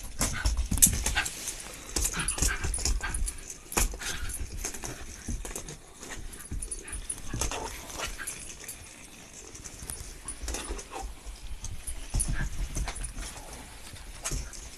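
Shiba Inu chewing and playing with a new toy: irregular clicks, cracks and thumps, with the dog's occasional whimpers.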